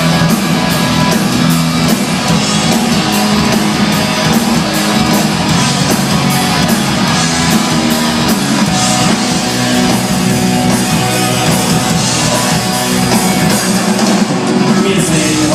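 Loud live rock music played by a band: guitar over a steady drum beat, running without a break.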